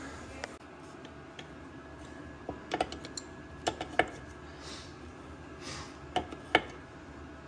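Metal tools and parts clinking and knocking during hands-on vehicle repair work: a scattered cluster of sharp clicks through the middle and two louder knocks near the end, over a faint steady background hum.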